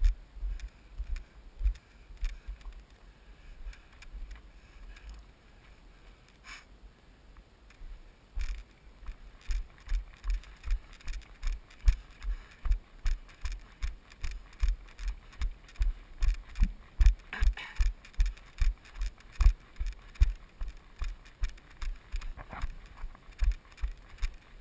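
Running footsteps on a gravel dirt road, each stride jolting the body-worn GoPro in its case as a low thump with a light click, about three a second. The strides go faint and sparse for a few seconds near the start, then come steady.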